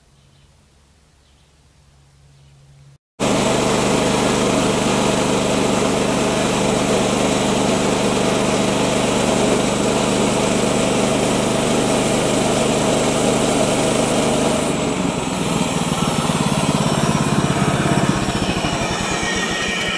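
Portable bandsaw mill running on its gas engine, its band blade sawing through a black walnut round; the sound starts abruptly about three seconds in after a faint opening, and the low engine note shifts about fifteen seconds in.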